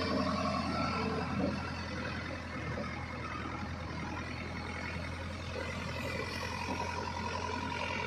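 JCB 3DX backhoe loader's diesel engine running steadily as the machine moves slowly over dirt.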